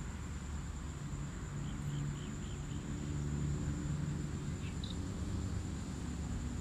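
Outdoor ambience: a steady low hum with a thin high steady whine. A quick run of five faint chirps comes about two seconds in, and another single chirp follows near five seconds.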